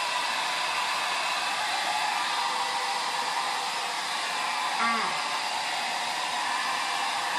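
Hand-held hair dryer blowing steadily, an even rushing hiss as it dries a child's hair.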